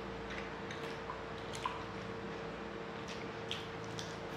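Eating sounds of puri and chana curry eaten by hand: scattered small wet clicks and squelches from tearing the fried bread, scooping the curry and chewing. A steady faint hum runs underneath.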